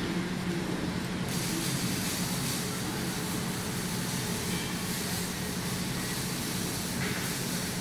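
Steady low machine hum with a constant hiss, the running noise of factory machinery.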